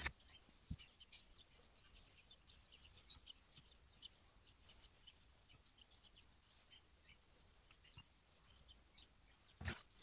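Near silence: quiet room tone with faint, scattered high ticks, a soft knock just after the start and a slightly louder knock near the end.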